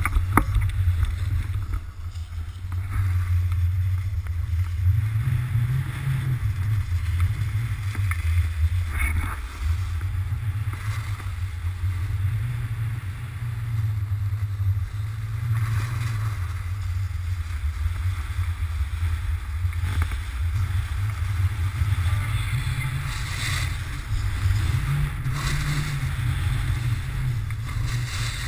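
Wind rumbling on a pole-mounted GoPro's microphone as a snowboard runs down a groomed slope, with the hiss and scrape of the board on the snow swelling and fading several times.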